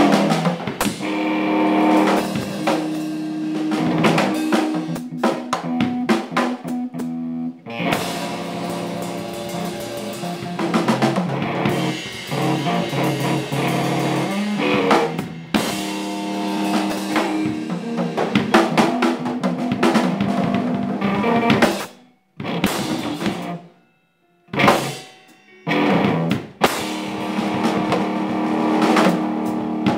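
A band playing an instrumental passage on drum kit and guitar. About 22 seconds in, the music cuts out, comes back as a few short hits with silent gaps between them, and then the full band comes back in.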